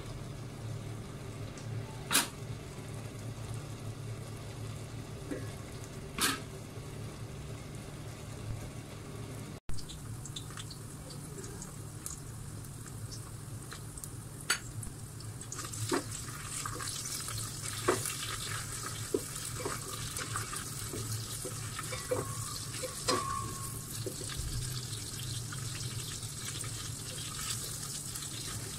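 Sliced shallots and whole spices frying in hot oil in a stainless steel pot, a sizzle that grows from about halfway through, with scattered clicks and knocks of a wooden spatula stirring against the pot. A low steady hum runs underneath, with two sharp clicks in the first part.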